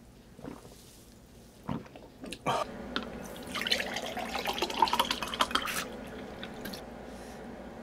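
Water poured from a bottle into a glass mug, the splashing rising in pitch as the mug fills, starting about two and a half seconds in and stopping about six seconds in. A couple of short knocks come before the pour.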